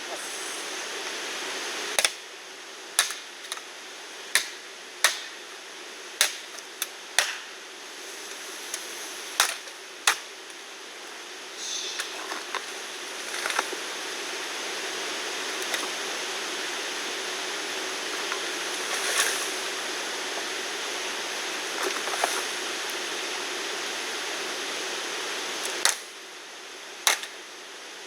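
Steady rain hiss, with a dozen sharp knocks: a quick run of them in the first ten seconds and two more near the end.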